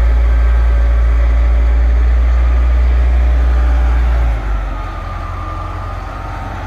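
Diesel engine of a front wheel loader running as it works a compost heap. A deep, steady rumble drops off about four seconds in to a quieter running sound, with a faint whine that rises and falls.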